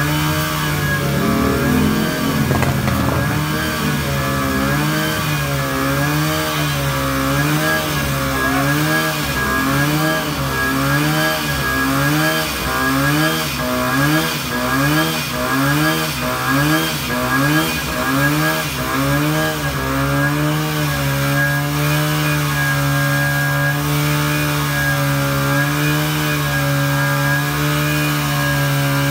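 Small gasoline engine of a portable fire pump running hard while it feeds a hose. For much of the time its pitch rises and falls about once a second, then it settles to a steady note.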